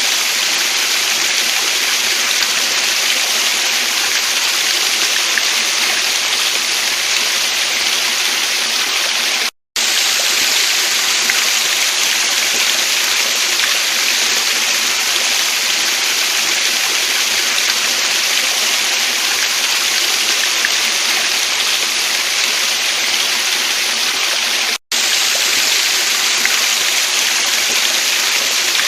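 Steady rushing of water from a stream at a waterfall. It cuts out briefly twice, about a third of the way in and near the end.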